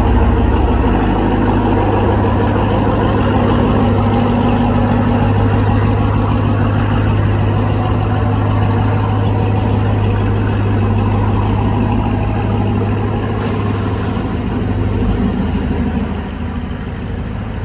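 The Ram TRX's supercharged 6.2-litre V8 running steadily at idle, with a strong, even low hum.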